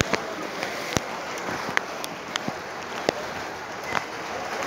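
Rain falling on standing floodwater, a steady hiss with scattered sharp taps of drops landing close by.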